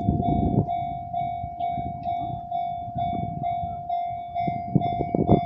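Japanese level-crossing alarm ringing in an even pulse about twice a second, over the rumble and rhythmic clatter of a Kintetsu train's wheels passing over the crossing.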